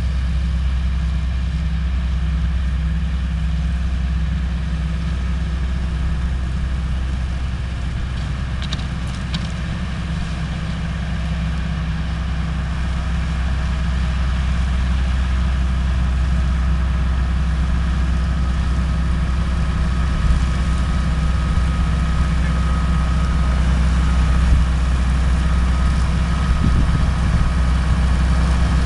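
Massey-Ferguson 390 tractor's diesel engine running steadily under load while driving a New Holland 40 horizontal-axis shredder through a mustard cover crop. The steady drone dips slightly, then grows louder in the second half.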